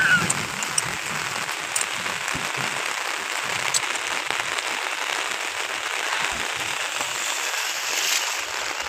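Steady monsoon rain falling, an even hiss of drops.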